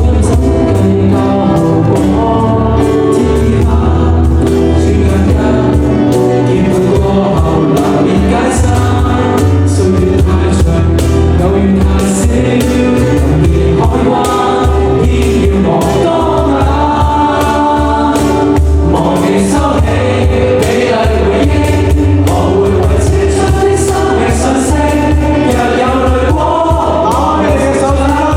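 Live pop-rock band playing, with several voices singing together over the band and a steady bass.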